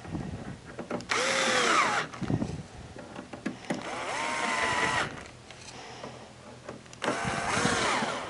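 Cordless drill-driver driving three screws into a dehumidifier's metal exhaust bracket: three short runs of the motor, about a second each, the whine shifting in pitch as each screw seats.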